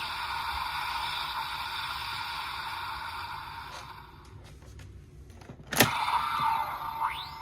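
Electronic sound effects from the DX Blizzard Sorbet Gochizo toy: a steady hiss fades out over about four seconds. A sharp plastic click comes just before six seconds in, followed by short sliding tones near the end.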